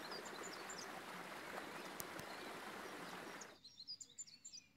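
Small birds chirping faintly over a steady hiss; about three and a half seconds in the hiss cuts off abruptly, leaving the bird chirps clearer over near quiet.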